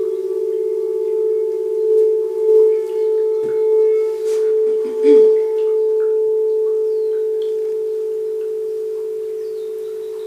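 Crystal singing bowls ringing with a sustained pure tone, two close pitches beating against each other in a slow wobble. The sound swells a few times in the middle, then holds and slowly fades.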